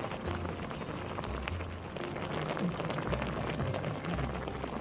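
Kimchi hot pot simmering in a metal pot on a gas canister camp stove: a dense, steady patter of small bubbling pops over the low sound of the stove.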